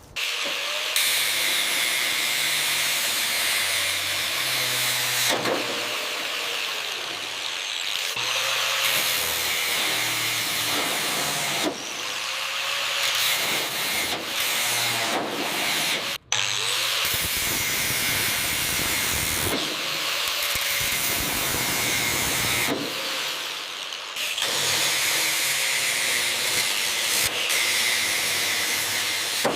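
Power-tool work, such as grinding or sanding during a car body restoration, in a series of short shots. The sound changes abruptly several times.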